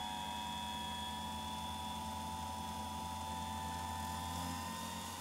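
Small electric motor of a watchmaker's lathe running steadily, belt-driving the headstock, with a low hum and a steady whine. It is still turning the wrong way even though its supply wires have been swapped.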